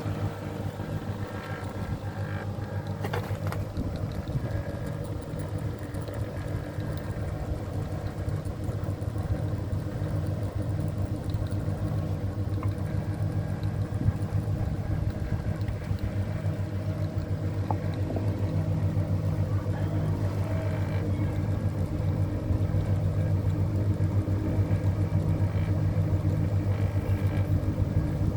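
Ceiling fan running, its motor giving a steady low hum that grows a little louder in the second half.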